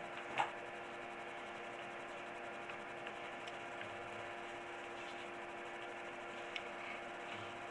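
Steady electrical hum with faint hiss: room tone, with a faint knock about half a second in and a faint tick near the end.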